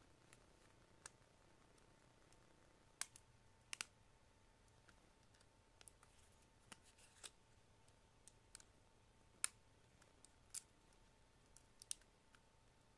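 Faint, irregularly spaced clicks and taps of hands handling a tablet and its plastic case. The loudest click comes about nine and a half seconds in.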